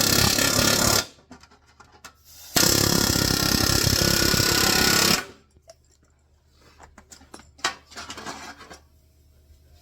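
Pneumatic air hammer (rivet gun) setting rivets, in two bursts of rapid hammering: a short one at the start and a longer one of about two and a half seconds, followed by a few light clicks and rattles of handling.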